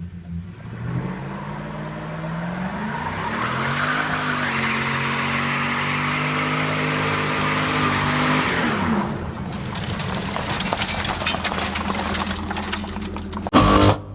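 A car engine revving up and held at high revs for several seconds, then falling away, followed by a spell of crackling noise and a short, loud burst near the end.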